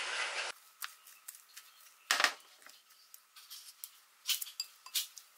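Chopsticks clicking and scraping against a glass bowl while mixing potato salad: a few scattered, faint clicks, the sharpest about two seconds in. A brief noisy stretch at the very start cuts off about half a second in.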